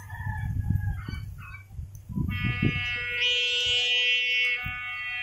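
Hummer on a homemade Vietnam-style kite in flight, giving a steady buzzing tone rich in overtones, like an alarm. The buzz fades out at the start, comes back about two seconds in and is loudest around the middle, over wind gusting on the microphone.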